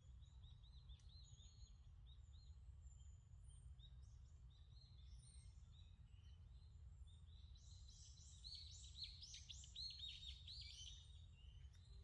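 Small birds chirping and calling in short repeated notes, with a faster, louder run of chirps from about eight to eleven seconds in, over a faint low rumble.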